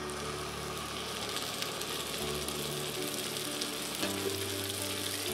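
Chicken pieces in tomato ketchup sauce sizzling steadily in a hot pan as a cup of water is poured in, with soft background music.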